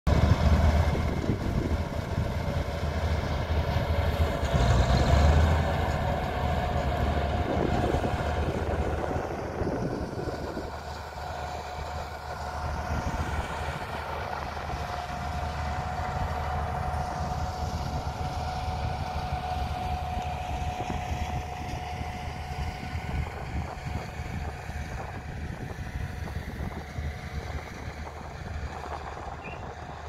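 Komatsu crawler bulldozer's diesel engine running under load as it pushes sand, loudest in the first several seconds and easing after about ten seconds, with a thin steady whine over it.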